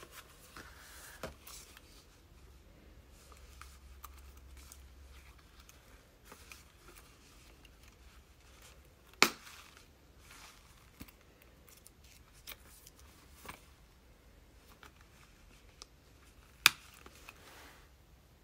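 Light rustling and handling of a quilted leather Chanel flap key holder and its fabric dust bag, with small clicks and two sharp, much louder clicks about seven seconds apart from its metal snap fasteners.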